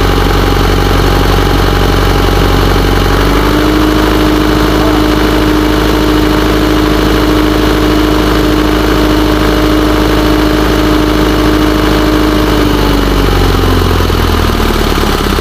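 Isuzu 4HJ1 four-cylinder diesel engine idling, then raised to a steady higher speed about three seconds in. It is held there for about nine seconds and drops back to idle near the end. This is a rev test to check for a misfire, run after the injector wiring connector was cleaned with contact cleaner.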